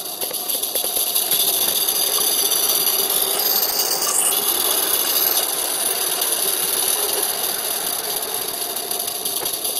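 A small live-steam garden-railway locomotive running along the track: a steady hiss of steam with the rattle of its wheels on the rails.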